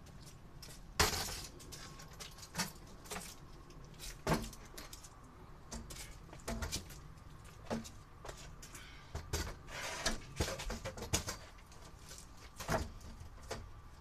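Irregular light clicks and knocks, over a dozen of them, the loudest about a second in.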